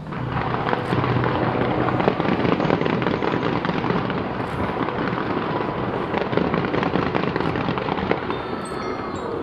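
A New Year's fireworks display: a dense, continuous barrage of rapid crackling pops and bangs that starts suddenly.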